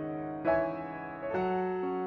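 Slow piano music, with new notes struck about half a second in and again a little before the end.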